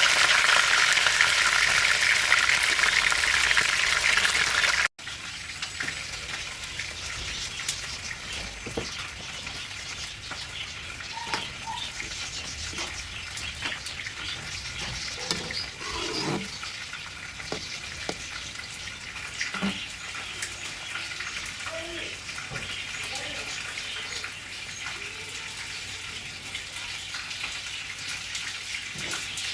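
Food frying in hot oil, a loud steady sizzle that stops abruptly about five seconds in. After that there is quieter kitchen background with scattered light clicks and knocks.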